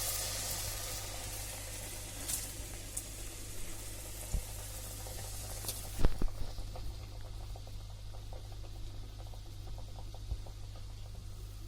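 Momos frying in hot oil, sizzling strongly and then dying down about halfway through. A sharp knock about six seconds in is the loudest sound, followed by a few light ticks.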